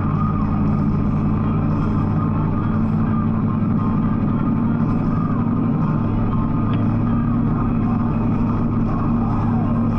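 Harley-Davidson Street Glide's V-twin engine running steadily at cruising speed, with wind and road noise over it.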